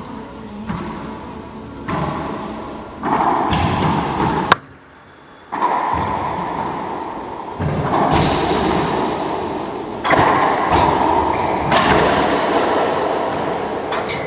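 Racquetball play: a string of sharp hits of the ball off racquets, walls and the hardwood floor, each followed by a long ringing echo in the enclosed court.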